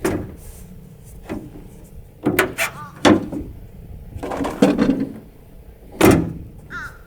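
Pickup truck tailgate being worked open and shut on its newly repaired latch: a series of sharp metal clunks and latch clicks, about one a second.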